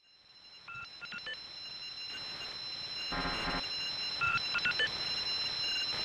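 Steady high electronic tones fading in, with two short bursts of phone-like ringing tones about three and a half seconds apart.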